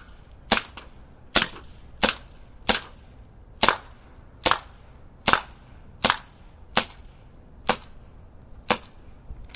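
BB pistol firing shot after shot at a steady pace, about eleven sharp cracks, each less than a second apart.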